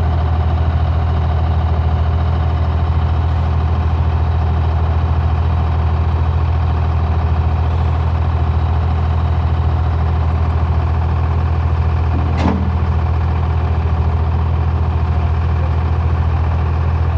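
Engine idling steadily, with one brief sharp sound about twelve seconds in.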